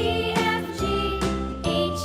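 Background music: a bright, tinkling children's tune with a new note about every half second over a steady bass.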